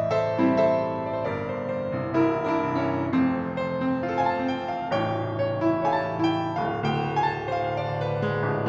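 A 1988 Yamaha P112 upright piano being played, a continuous run of struck chords and melody over sustained bass notes.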